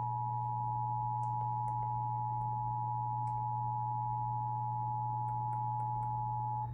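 Emergency Alert System attention signal: two steady sine tones sounding together without a break, stopping right at the end, over a low steady hum.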